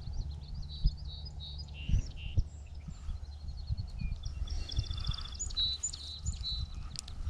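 Songbirds chirping and singing, with a fast trill about five seconds in, over a steady low rumble and a few short bumps.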